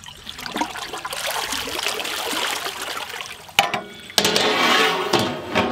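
Water pouring and splashing into a large aluminium pot of water with whole spices, the water being readied to boil biryani rice. There is a short break about two-thirds of the way in, and the splashing is louder after it.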